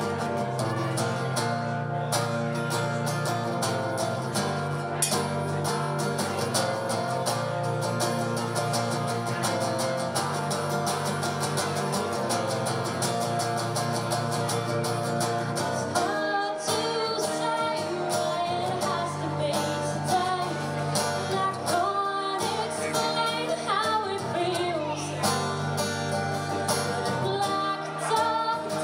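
Live acoustic guitar strummed in a steady rhythm with a woman singing over it through a PA; the singing stands out most in the second half.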